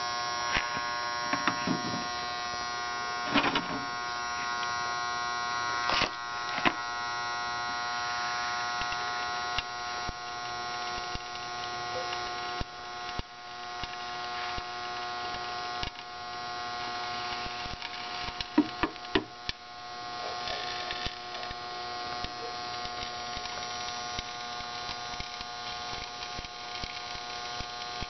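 Microwave oven transformer humming steadily under heavy load as it drives current through a thin copper wire shorted across its terminals to heat it, with a few short clicks and knocks.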